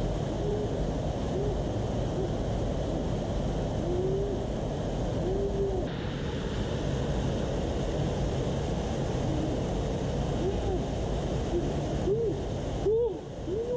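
Water pouring over a small weir into a shallow pool, a steady rush. Over it come short calls that rise and fall in pitch, repeating irregularly and coming faster near the end.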